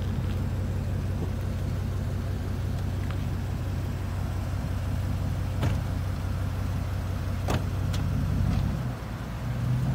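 Pickup truck's engine running steadily, with a few light clicks about halfway through. Near the end the engine note drops briefly and comes back a little higher.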